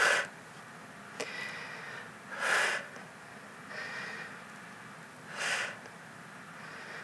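A woman's breathing during a kneeling bodyweight exercise: audible breaths through nose and mouth, a louder one about every three seconds with fainter ones between, in time with her repetitions. A single small click comes just after a second in.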